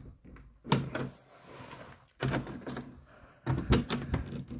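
A bunch of keys jangling, with sharp clicks and rattles of handling at a door.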